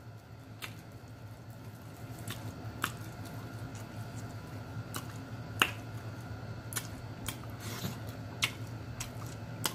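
A person chewing with close-miked wet mouth sounds: scattered sharp clicks and smacks every second or so, over a steady low hum.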